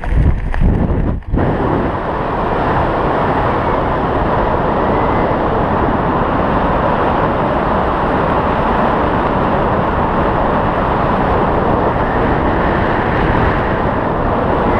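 Wind rushing over the microphone of a hand-mounted camera during a tandem skydive. It is gusty and uneven for the first second or so, breaks off in a sudden brief dip, then settles into a steady rush of air under the open parachute canopy.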